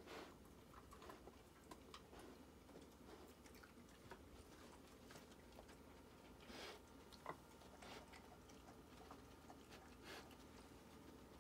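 Faint sniffing and small mouth clicks of a Japanese Akita puppy searching with its nose to the carpet, a few louder short sniffs standing out; otherwise near silence.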